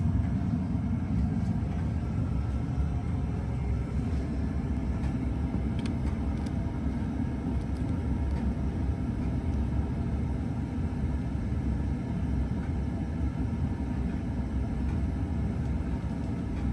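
42-inch Encon Traditional ceiling fan running steadily on high speed: a low, even rumble of air moved by the blades.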